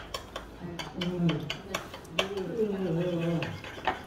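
Dishes and cutlery clinking on a table: several sharp clinks, with a man's voice sounding in two stretches in between.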